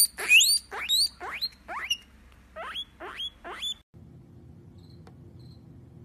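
Guinea pig wheeking: a string of about eight sharp, rising squeals, roughly two a second. This is the excited call a guinea pig gives over food. The squeals stop abruptly about four seconds in, leaving only a faint low hum.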